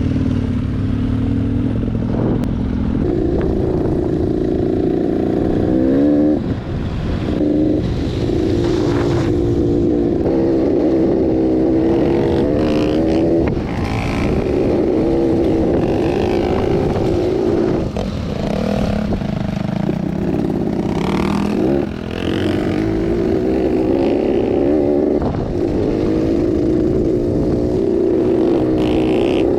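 Enduro motorcycle engine running under load on an off-road climb, its revs rising and falling with gear changes, with a few brief throttle-offs.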